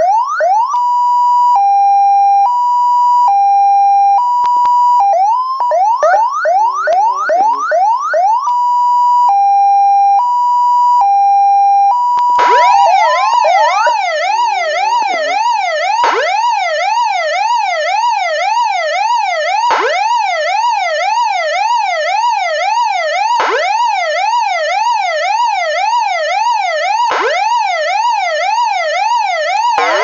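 A run of electronic emergency-vehicle sirens. First come fast repeated rising yelp sweeps, then a two-note hi-lo, then yelp sweeps again, then hi-lo again. About twelve seconds in, a fire-truck siren takes over with a rapid up-and-down warble of about two cycles a second, briefly dipping every few seconds.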